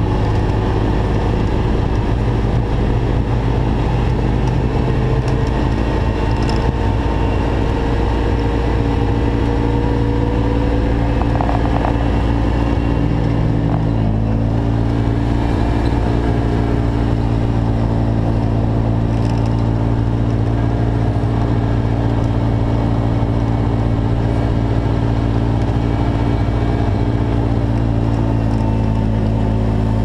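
A motor vehicle's engine running steadily while driving, its pitch rising slowly and then shifting about halfway through.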